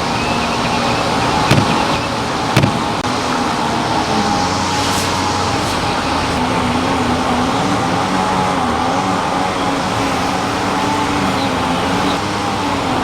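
A mass of honeybees buzzing, a continuous wavering hum that drifts slightly in pitch. Two sharp clicks sound about one and a half and two and a half seconds in.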